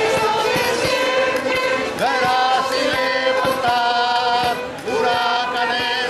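A choir of mixed women's and men's voices singing together in long held notes, moving to a new pitch every second or so.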